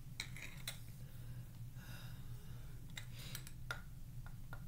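Metal spoon clicking and scraping against a glass measuring cup while scooping cornstarch powder: a handful of short, sharp clicks at uneven intervals, over a low steady hum.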